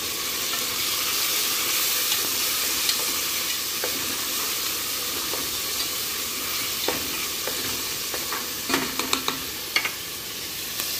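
Chopped tomatoes and onions sizzling in hot oil in an aluminium pot while being stirred with a wooden spoon, a steady frying hiss. A few sharp knocks of the spoon against the pot come near the end.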